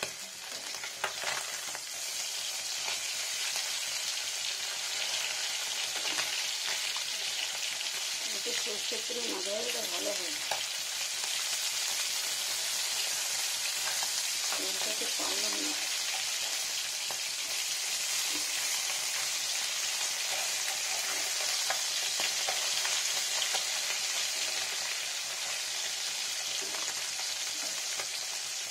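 Small bata fish frying in mustard oil in a pan, a steady sizzle throughout, with a few clicks of a metal spatula against the pan near the start as the fish are turned.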